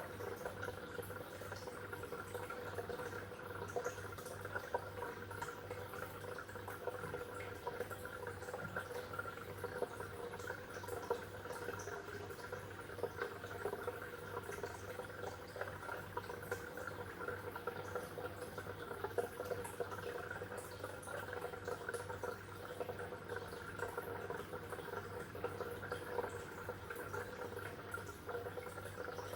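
Water bubbling and trickling without pause in a fish tank, many small bubble ticks over a steady low hum.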